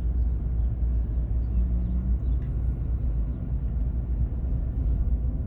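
A truck driving, its engine and tyres making a steady low rumble.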